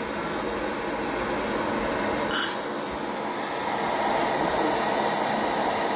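Preheated hot-air popcorn popper, used as a coffee roaster, running with a steady blower rush. About two and a half seconds in, a scoop of green coffee beans drops into the roasting chamber with a short hiss.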